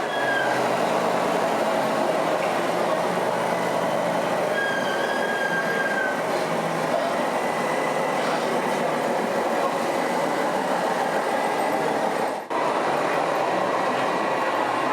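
Radio-controlled model trucks running, a steady mechanical din with a couple of short high squeals. It drops out briefly about three-quarters of the way through.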